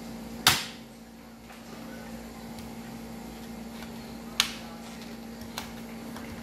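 Laptop top-case retaining clips snapping loose as the keyboard deck is pried up from the base: a sharp click about half a second in, another about four and a half seconds in, and a fainter one soon after, over a faint steady hum.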